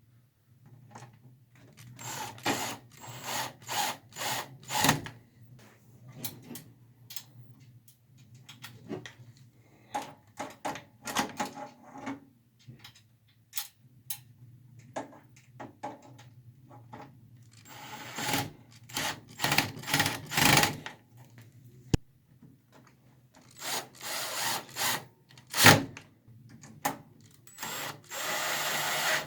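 Power drill driving the mounting screws into a computer power supply in several short runs, with clicks and rattles of handling in between.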